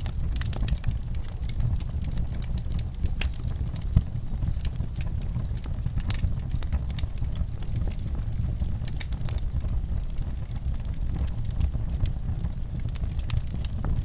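Wood fire crackling in a fireplace: a steady low rumble of flames with frequent small pops and snaps, one louder pop about four seconds in.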